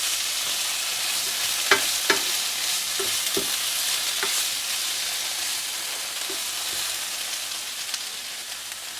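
Food sizzling in a frying pan while being stirred, the utensil knocking against the pan several times in the first half. The sizzle slowly fades as the heat has just been turned off.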